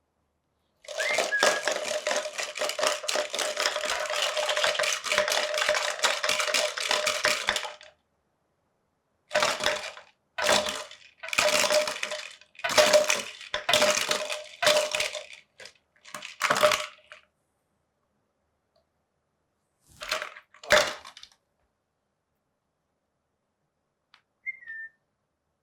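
Parrots' beaks clattering and crunching on a plastic Parmesan cheese bottle: a dense run of rapid clicks and rattling for about seven seconds, then several shorter bursts of clatter. A brief high chirp near the end.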